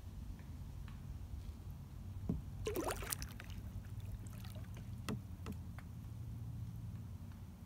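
Kayak paddle dipping and splashing, with a few short splashes and drips, over a low steady rumble.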